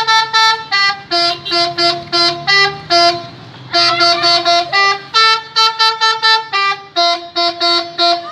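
Jeep's telolet horn, a set of trumpet horns sounded in turn, playing a tune of short tooting notes at about three or four notes a second, with a brief pause a little after three seconds in.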